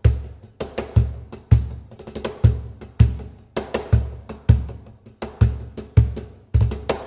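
Baptista Aura Cedro cajón played by hand in a steady groove: deep bass strokes alternate with sharp, bright slaps on the front plate. The strokes come several times a second.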